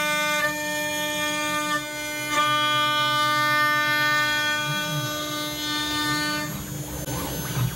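CNC router spindle whining steadily while its bit cuts through walnut on an adaptive clearing toolpath, the whine dipping briefly a few times as the cut changes. About six and a half seconds in, the whine drops away into a rougher, noisier sound with lower tones sliding up and down.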